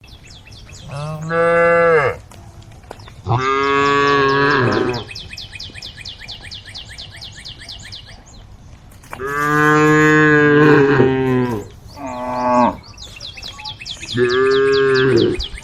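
Cattle mooing: five drawn-out calls, most lasting one to two and a half seconds, one of them short. A fast, high, evenly spaced chirping runs behind the calls in the middle and again near the end.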